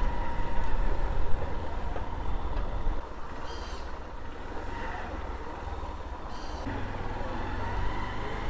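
A road vehicle's engine running at the bus park, a steady low rumble that weakens about three seconds in.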